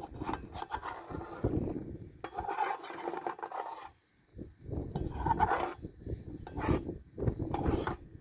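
Irregular scraping and rubbing strokes in uneven spells, with short gaps between them.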